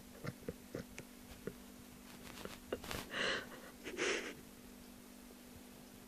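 Sleeping dog breathing between snores: two short, airy breaths about a second apart near the middle, after a few faint clicks.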